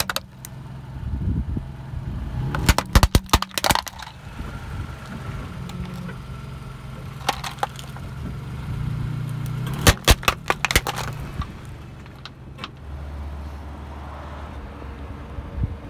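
Red plastic toy motorcycle cracking and snapping under a slowly rolling car tyre, in two bursts of sharp cracks, about three seconds in and about ten seconds in. The car's engine hums low underneath.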